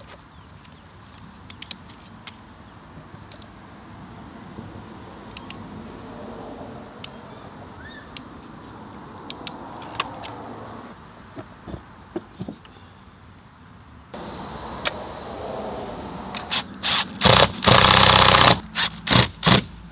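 Light scattered clicks and clinks of hand tools working a PEX crimp fitting. Near the end, a cordless drill drives screws in several short bursts and one longer run, the loudest sound.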